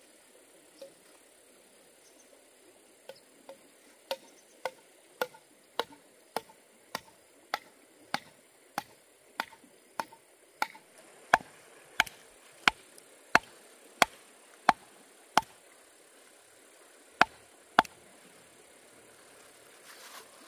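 Steady series of sharp chopping strikes, about one and a half a second for some twelve seconds, louder in the second half, then two more after a short pause. A faint steady insect chirring runs underneath.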